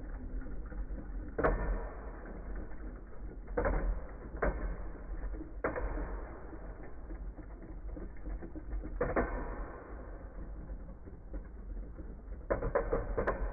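Wolborg and Hound Dog Beyblade spinning tops whirring in a plastic bowl stadium and clashing against each other, with sharp clacks about 1.5, 3.5, 4.5, 6 and 9 seconds in and a quick flurry of hits near the end.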